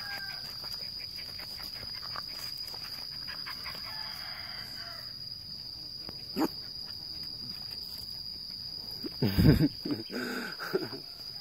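Steady high-pitched insect drone throughout, with a short loud low sound about nine seconds in and a weaker one right after it.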